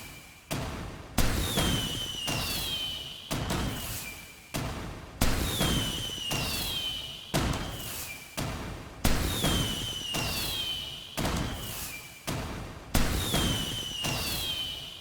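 Fireworks bursting in a regular series of bangs, a louder one about every four seconds, each followed by a high falling whistle as it fades, with smaller pops in between.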